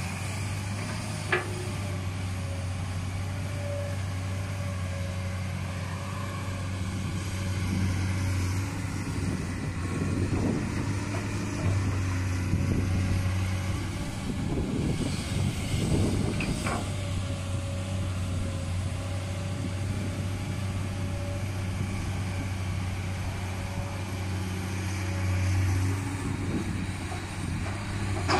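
Komatsu PC200-8 excavator's diesel engine running steadily, rougher and more uneven for several seconds in the middle as the machine works. A sharp knock comes about a second in and another a little past halfway.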